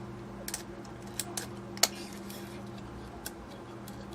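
Scattered light clicks and taps from the metal parts of a dismantled radio control box being handled, about half a dozen, the sharpest a little under two seconds in, over a steady low hum.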